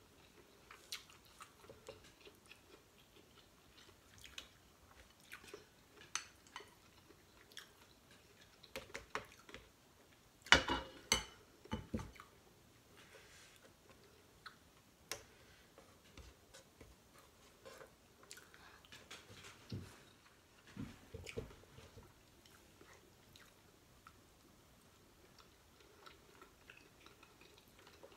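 A person chewing and eating a seafood boil of shrimp and rice by hand, close to the microphone: quiet chewing with scattered clicks and crackles, and a short run of louder sharp cracks about ten to twelve seconds in, with a few more around twenty seconds in.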